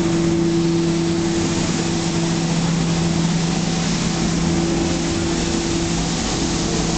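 Street sweeper truck running: a steady engine hum under a loud, even hiss that goes on unbroken.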